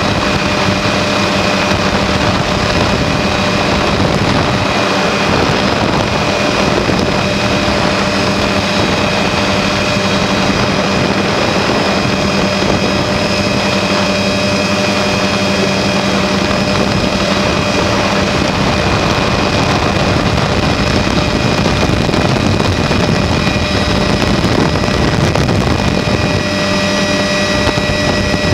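Helicopter rotor and engine running steadily, heard through the open doorway with wind on the microphone: a loud, even rush with a few constant whining tones over it.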